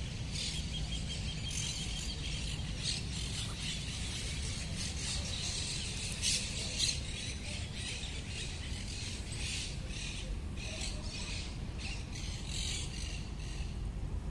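Several birds calling and chirping in short, repeated calls, over a steady low rumble.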